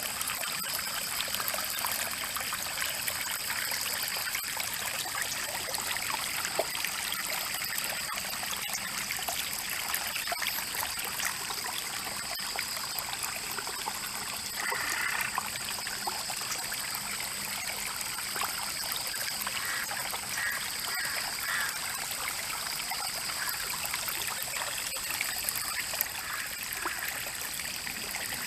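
Rain-fed stream trickling and flowing, a steady watery rush with no letup.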